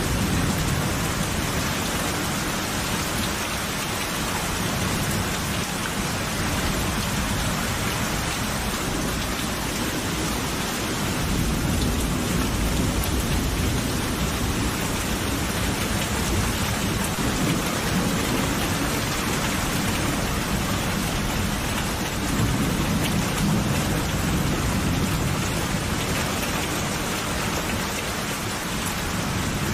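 Steady heavy rain falling, with low thunder rumbling and swelling several times.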